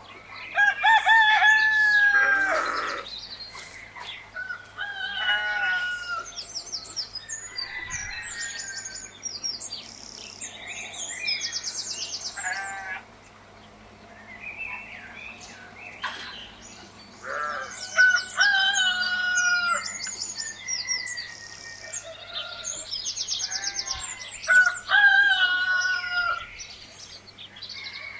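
Roosters crowing several times, with small birds chirping and trilling throughout.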